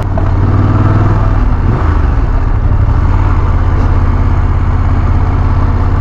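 Motorcycle engine, the parallel twin of a BMW F 850 GS, running steadily while riding on pavement, mixed with wind and road noise.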